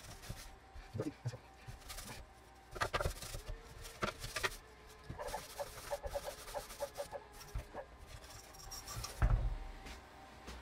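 Wet wipe rubbing and squeaking over a plastic radio-cassette cabinet, with clicks and knocks as the case is handled and one heavier thump near the end.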